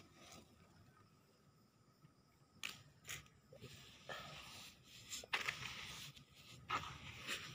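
A bare hand digging and scooping through sandy potting mix in a plastic pot, mixing in the sand. Faint gritty scrapes and crunches come a few at a time, starting about two and a half seconds in.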